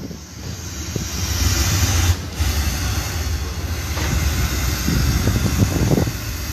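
Wind blowing across the microphone: a rushing noise with an uneven low rumble.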